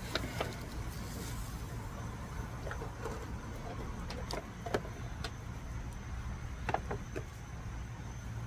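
Steady low rumble with scattered light clicks and taps from a metal spatula on a flat-top griddle and from food being handled.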